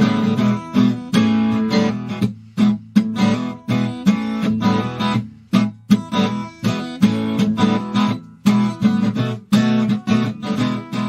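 Background music: a strummed acoustic guitar with a steady rhythm, fading out near the end.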